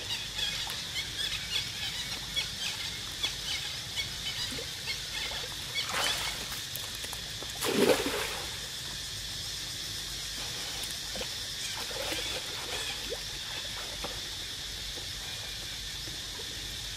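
Water splashing and lapping as macaques swim, with a louder splash about eight seconds in, over a steady high-pitched background hum.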